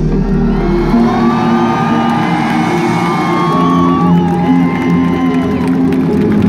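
Live pop concert music with sustained keyboard chords, the deep bass dropping away about a second in, while the audience cheers and screams over it.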